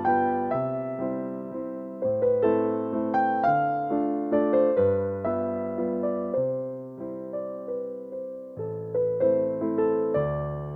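Background music: a soft solo piano or electric piano playing a gentle, flowing melody with chords, notes struck and fading.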